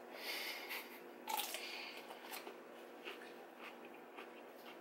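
Close-up eating sounds: two crunchy bites in the first two seconds, then quieter chewing with small wet mouth clicks.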